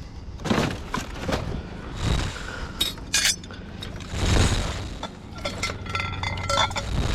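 Hard junk items clinking and clattering as they are handled and shifted in a scrap pile: a string of separate knocks and clinks, some ringing briefly, coming thick and fast in the second half.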